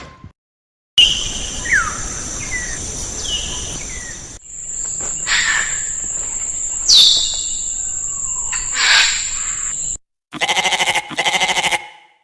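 Bird calls, short whistled notes falling in pitch, over a steady high-pitched drone like insects, heard in two back-to-back cut clips. Near the end come two short pulsing animal calls.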